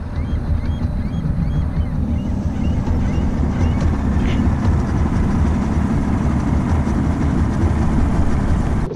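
Bass boat's outboard motor running steadily with the boat under way, a loud even low rumble with rushing noise.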